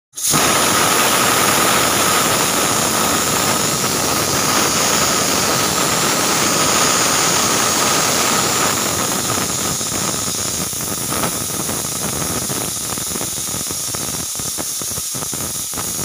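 Stovetop aluminium pressure cooker's whistle blowing: a long, loud jet of steam hissing out through the weight valve with a steady whistling tone, the cooker venting at full pressure. Over the last few seconds it weakens a little and sputters.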